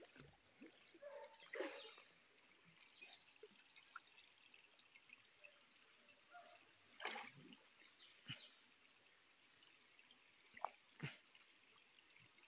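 Quiet stream ambience: a steady high-pitched insect drone with a few faint bird chirps, and three soft water splashes from a swimmer, about 1.5, 7 and 11 seconds in.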